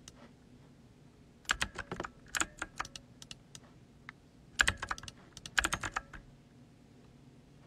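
Typing: rapid clatter of key clicks in two bursts, the first about a second and a half in, the second about four and a half seconds in.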